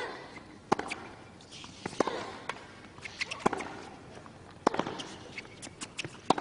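Tennis rally: sharp racket strikes on the ball about every second or so, with ball bounces between them.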